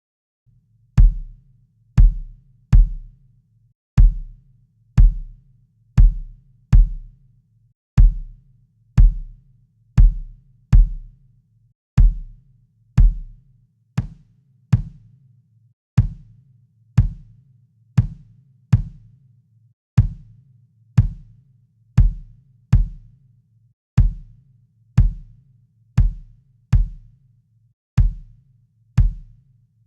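Recorded acoustic kick drum samples looping a simple beat: about one deep hit a second, with an extra quick hit after some beats, each hit short with a booming low tail.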